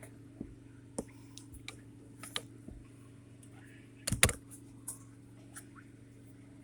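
Scattered light clicks and taps of small parts being handled, with a louder cluster of knocks about four seconds in, over a steady low hum.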